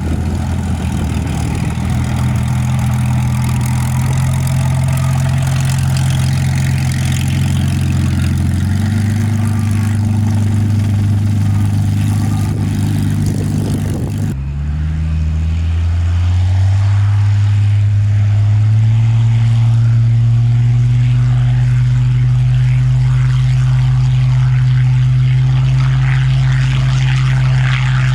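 Propeller aircraft engines running with a deep, steady hum. After a cut about halfway, the engine note rises in pitch and grows louder.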